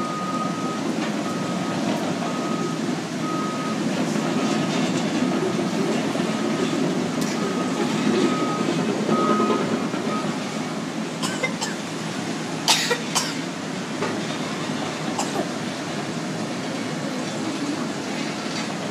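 Bulldozer back-up alarm beeping at a steady pace over the continuous noise of heavy machinery running on the beach; the beeping stops about halfway through. A few sharp knocks follow soon after.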